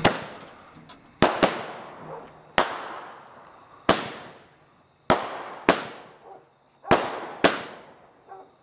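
Bulldog Raining Jewels 7-shot firework cake firing: a string of about nine sharp bangs, some in quick pairs, roughly one every second, each trailing off before the next.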